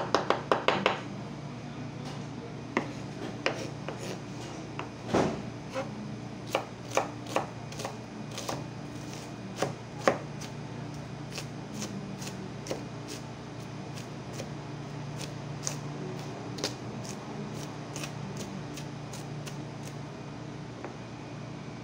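Kitchen knife chopping onion on a wooden cutting board. A quick run of blade taps comes at the start, then scattered single chops, and a steadier run of lighter taps, about two a second, through the second half as the onion is minced fine.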